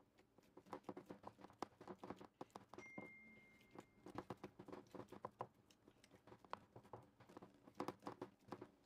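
Hands patting and pressing soft yeast dough flat into a round aluminium baking tray: quick soft pats in bunches.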